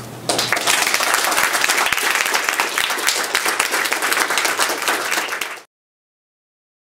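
Audience applauding, a dense patter of many hands clapping. It starts suddenly and cuts off abruptly after about five seconds.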